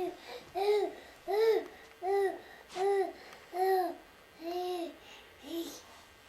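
A person laughing in an even run of about eight high, pitched hoots, a little more than one a second, each rising and falling in pitch.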